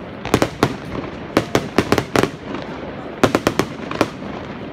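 Aerial fireworks bursting: sharp bangs in quick clusters of several at a time, three clusters in all, with one more single bang near the end.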